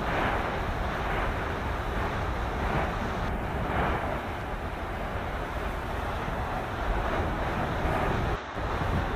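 Phreatic steam-blast eruption where lava meets ground water: a steady low rumble and hissing roar, with irregular swells of hiss, heavily buffeted by wind on the microphone. There is a brief dropout near the end.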